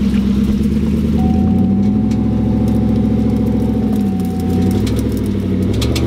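Pickup truck engine running, its revs rising about a second and a half in and dropping back around four seconds in, with a thin steady whine over it for a few seconds in the middle.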